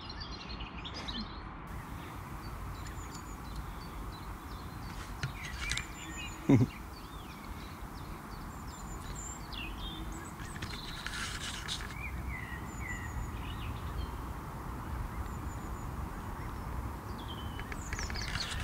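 Scattered short bird chirps and high peeps over a steady outdoor background hum, with one brief low call about six and a half seconds in.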